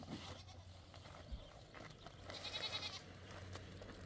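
A goat bleats once, a short wavering call a little over two seconds in. There are faint knocks and rustles of things being handled around it.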